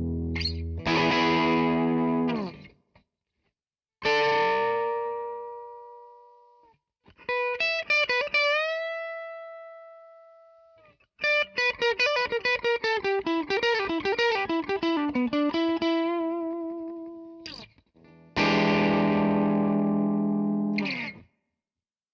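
Electric guitar played through a Zoom G2X Four's overdriven Marshall amp model. Strummed chords ring out and die away, then sustained single notes, then a fast lead run that falls in pitch about eleven seconds in. A last chord rings out near the end, with short silences between the phrases.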